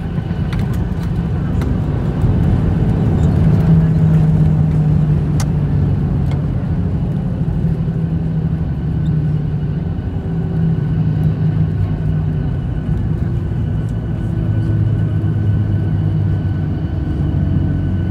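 Cabin noise of a jet airliner rolling out on the runway after touchdown: a loud, steady low rumble from the engines and wheels with a humming drone, scattered rattles in the first few seconds, swelling about two seconds in and easing somewhat later.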